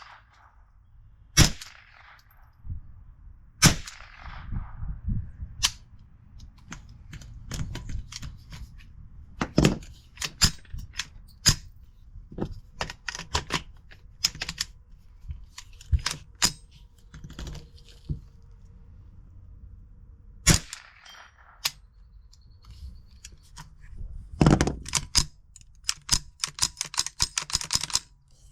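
Gunshots fired at irregular intervals: a handful of loud, sharp cracks, about six, among many fainter shots and small clicks.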